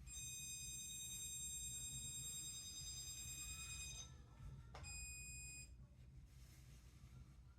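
Electronic stud finder sounding a steady high-pitched tone for about four seconds, then a second, shorter tone about a second later, its signal that it has found a stud behind the wall.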